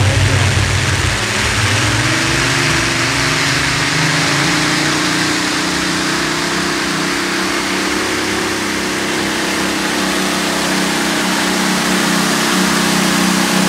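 Heavy modified pulling tractor's engines running loud at full power, the pitch climbing over the first couple of seconds and then holding steady.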